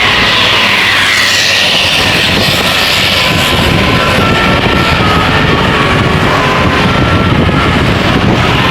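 A large bus passing close by, a loud steady rush of engine and tyre noise that swells and sweeps in pitch over the first few seconds.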